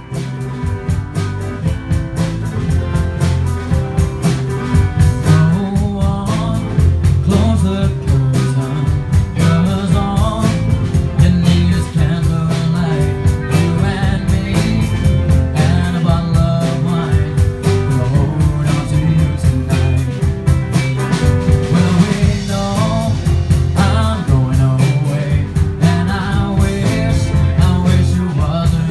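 Live band playing a blues-rock number: electric guitar, bass guitar, drums and keyboard, with a harmonica carrying the lead.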